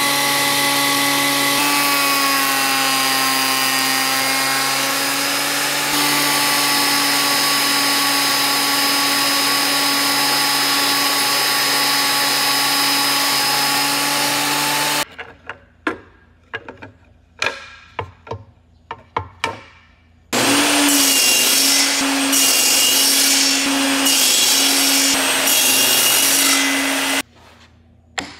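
Ryobi 10-inch benchtop surface planer running and planing a walnut strip, its motor pitch sagging under the cut for a few seconds before recovering. About halfway through it stops; a run of sharp wooden knocks follows, then a table saw running and making a series of cuts about every second and a half until near the end.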